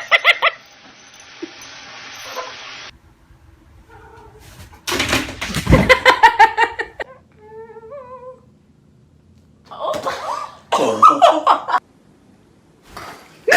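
People laughing and talking in short bursts, with quieter gaps between them.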